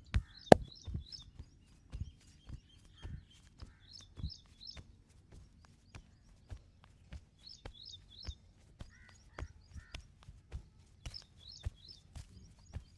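Hands striking a body during a massage: sharp, irregular slaps and taps, about two a second, the loudest one about half a second in. Birds chirp in the background, in short three-note phrases that come back four times.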